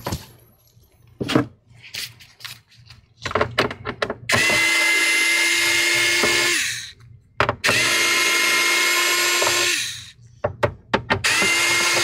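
Small cordless electric screwdriver backing out Phillips screws: a few clicks as it is set on the screw heads, then three runs of its motor, each a steady whine of about two and a half seconds, the third starting near the end.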